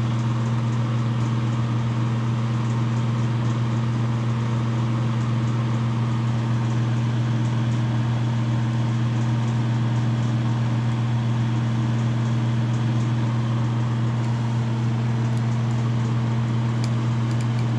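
Carlisle CC bench torch running its small pinpoint flame against a slice of cedar: a steady hiss under a loud, constant hum. Near the end the heated cedar begins to crackle and pop.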